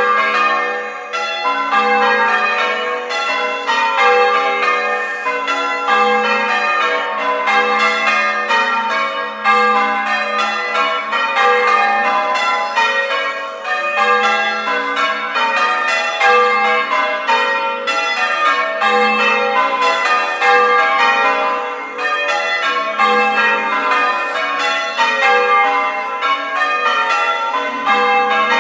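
A ring of church bells being change-rung, the bells striking one after another in quick succession, several a second, with their ringing tones overlapping in an unbroken stream.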